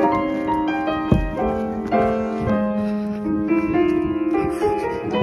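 Background piano music, a run of sustained notes. A single thump about a second in.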